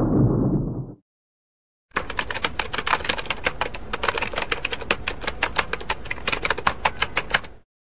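A loud rumbling noise that cuts off abruptly about a second in. After a second of silence, a fast run of sharp clicks, many a second, goes on for nearly six seconds and stops just before the end.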